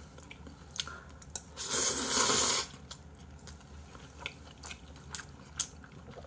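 A man slurps a mouthful of cold spicy bibim ramen noodles once, a loud noisy slurp lasting about a second, then chews with small wet mouth clicks.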